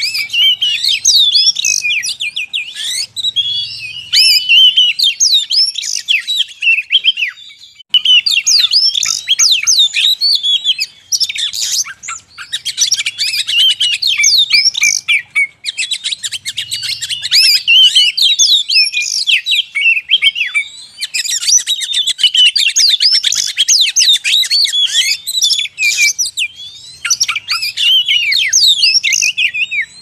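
Oriental magpie-robin song played as a trapping lure recording: a rapid, varied stream of whistled notes and buzzy chatter that runs almost without a break, with a few short pauses.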